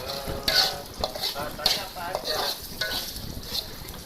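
Sambal frying and sizzling in a pan while being stirred, the spatula scraping against the pan in several sharp strokes.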